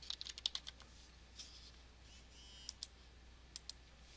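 Faint typing on a computer keyboard: a quick run of about eight keystrokes in the first second as a short surname is typed, then a few single clicks spread out after it.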